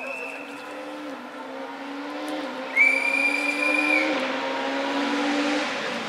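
A rally car's engine approaching at speed and growing louder, its note climbing and dropping back with each gear change. About three seconds in comes a long, steady, high whistle blast, the marshals' warning that a car is coming.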